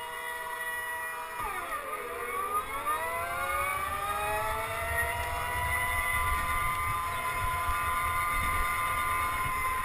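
Go-kart's motor whining, its pitch dropping as the kart slows for a bend about a second and a half in, then rising again under acceleration and holding steady on the straight. Tyre rumble underneath.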